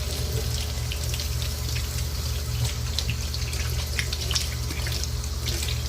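Water running from a sink tap while hands rinse soap lather off, with frequent small splashes, over a steady low hum.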